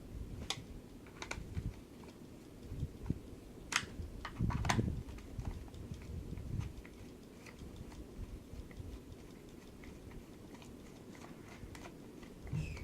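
Scattered light clicks and taps of small hard objects being handled, with a louder cluster of knocks about four to five seconds in.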